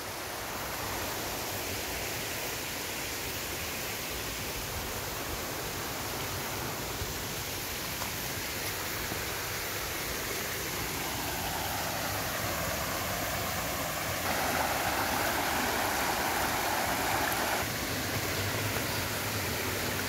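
Mountain stream running over rocks: a steady rush of water, a little louder for a few seconds past the middle.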